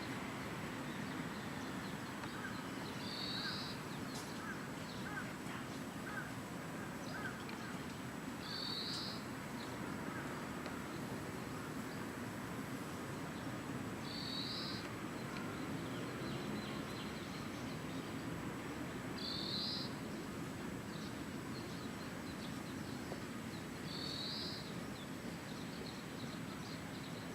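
Steady outdoor background with a small bird giving a short, high call about every five seconds, plus a few fainter chirps.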